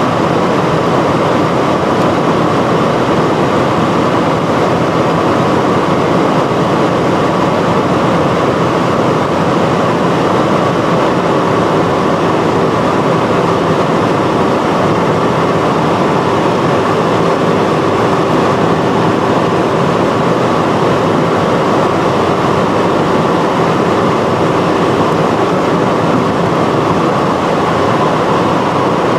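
Cabin noise of a 2018 Audi S6 Avant's 4.0 twin-turbo V8 cruising flat out at around 250–260 km/h: a loud, steady rush of wind and tyre noise over the engine's drone at about 4,000–5,000 rpm. A faint steady whine runs above it, and a lower hum joins about eleven seconds in and fades near the end.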